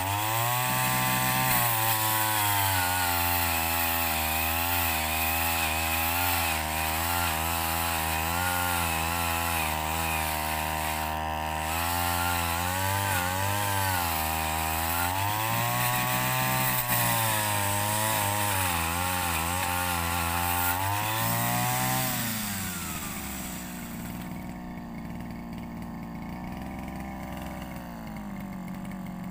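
A backpack brush cutter engine drives a chainsaw-bar attachment through a coconut palm trunk. The engine speed rises and dips as the chain bites. About 22 seconds in, the engine drops back to a low idle.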